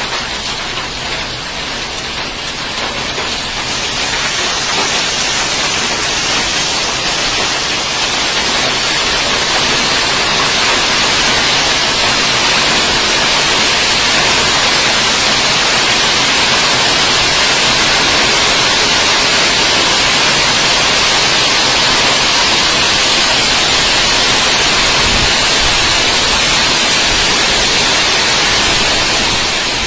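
Heavy monsoon rain pouring down as a dense, steady hiss. It grows louder over the first several seconds, then holds steady.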